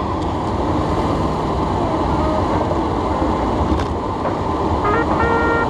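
Aluminum-head 427 cubic-inch V8 of a 1968 Corvette Stingray running steadily while the car cruises, with road noise, heard from the driver's seat.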